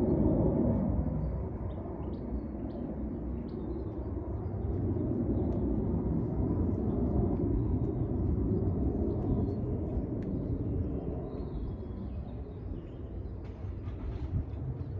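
Uneven low rumble of outdoor background noise, swelling and easing, with small birds chirping now and then above it.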